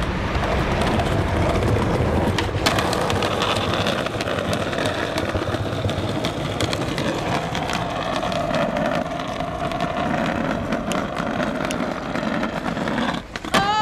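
Skateboard wheels rolling on pavement with scattered sharp clacks from the board, over a steady street rumble.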